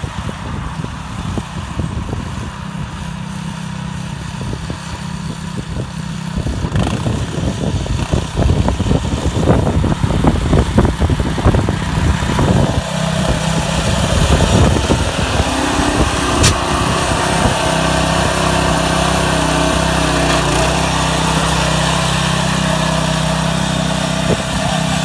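Harbor Freight Predator 6.5 hp single-cylinder engine on a Wheel Horse B-60 garden tractor running as the tractor drives, growing louder over the first half as it comes closer, then running steadily close by.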